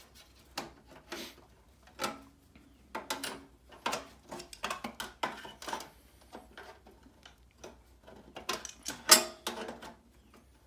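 A small hand tool clinking and scraping against the thin sheet-metal cabinet of an air handler, in an irregular run of short knocks and scrapes, the loudest cluster near the end.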